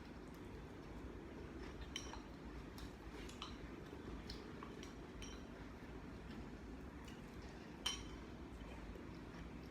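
Scattered light clinks of utensils against dishes, about six separate taps with a short bright ring, the loudest near the end, over a low steady hum.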